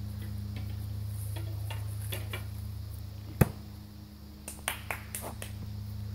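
One sharp, loud knock as a thrown spear (a SOG Spirit knife screwed onto a wooden stick) sticks into a wooden target board, about three and a half seconds in. A few lighter clicks follow about a second later, over a steady low hum.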